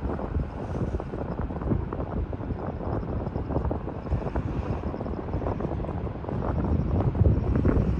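Wind buffeting the microphone: a steady, uneven rumble of gusts.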